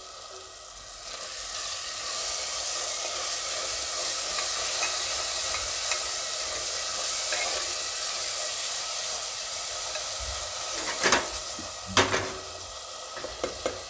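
Grated-tomato and spice masala sizzling in oil in a pressure cooker pot while a silicone spatula stirs it. The sizzle swells about a second and a half in, and a couple of sharp knocks come near the end.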